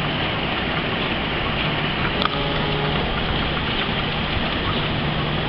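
Passenger train coaches rolling past on the rails, a steady running noise with a low hum under it. One sharp click comes about two seconds in.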